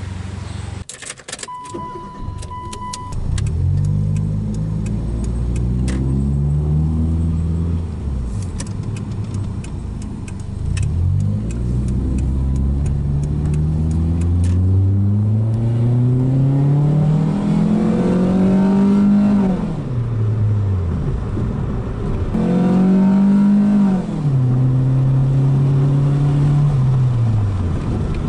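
Engine of a 1999 Mitsubishi Mirage, a 1.5-litre 4G15 four-cylinder with an automatic gearbox, heard from inside the cabin through a newly fitted aftermarket N1 muffler with a 4-inch tip. The revs climb and drop back several times as the car pulls away and the gearbox shifts up, then settle to a steady cruise near the end. A brief steady beep sounds about two seconds in.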